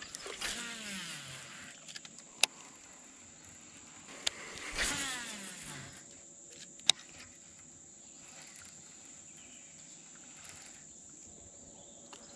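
Baitcasting reel spool whirring out on two casts, each a falling whine of about a second, with a few sharp reel clicks around them.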